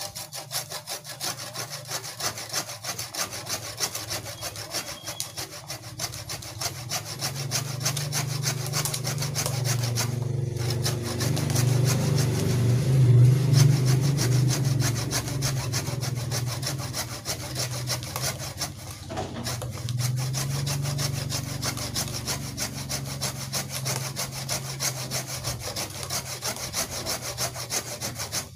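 Wooden-handled hand saw cutting through a thick walikukun branch in steady back-and-forth strokes, pausing briefly twice and loudest about halfway through.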